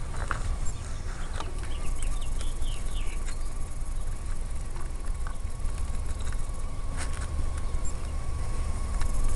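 Outdoor garden ambience: a low rumble and a thin steady high tone, with a small bird chirping a quick run of short falling notes between about one and a half and three seconds in, and a few light clicks.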